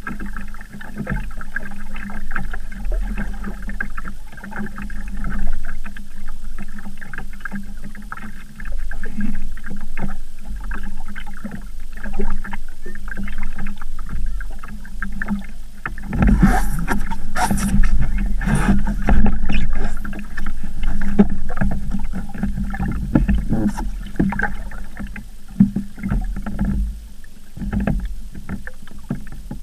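Water rushing and slapping along the hull of a small Sabot sailing dinghy under way, with a steady low wind rumble on the microphone. From about halfway through it grows louder, with several sharper slaps.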